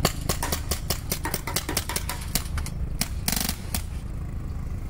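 Rapid, irregular clicks or pops, several a second, over a steady low hum, with a short rasping burst about three seconds in.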